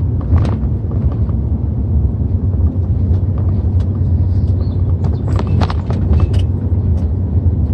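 Pickup truck driving, heard from inside the cab: a steady low engine and road rumble, with a run of light clicks and knocks about five seconds in.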